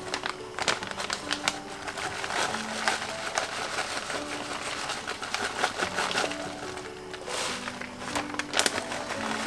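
Background music with a simple stepping melody, over the crinkling of a plastic bag of shredded cheddar being poured into a saucepan, heard as many scattered light clicks and rustles.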